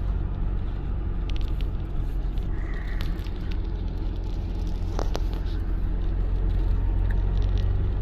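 Steady low rumble of a car's engine and tyres on the road, heard from inside the cabin while driving at a constant speed, with a few faint clicks.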